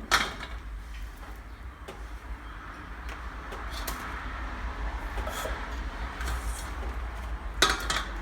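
Kitchen clatter of cookware and utensils: a sharp knock right at the start and another near the end, with a few lighter clicks between, over a soft hiss and a steady low hum.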